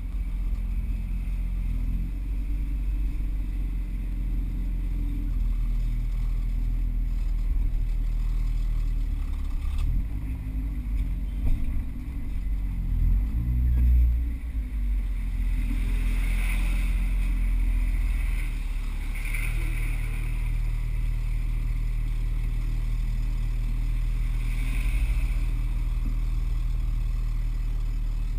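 Car engine heard from inside the cabin while driving slowly, its note rising and falling with the throttle through the first half, then settling into a steady drone.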